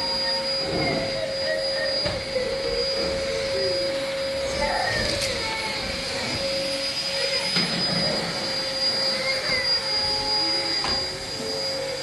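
Steady mechanical whine over an even hiss, holding two constant tones, one low and one high, from a running machine.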